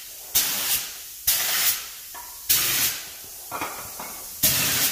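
Compressed-air paint spray gun hissing in four short bursts as the trigger is pulled and released, spraying paint onto a tractor wheel rim.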